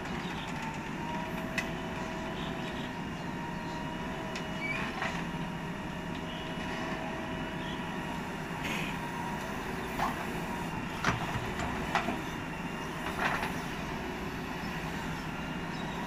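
JCB 4DX backhoe loader's diesel engine running steadily under digging load, a continuous drone with a higher steady tone over it. Several sharp knocks from the bucket and soil break through, most of them in the second half.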